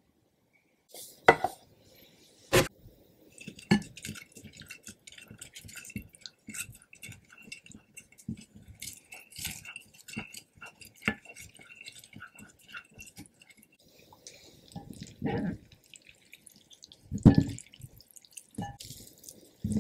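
Food being prepared, with no speech. In the first few seconds there are three sharp knocks. Then a wooden spoon stirs a wet seasoning sauce in a glass bowl, making many light clicks and scrapes. Near the end, cooked Indomie Mi Goreng noodles drop wetly into the glass bowl with two heavier thuds.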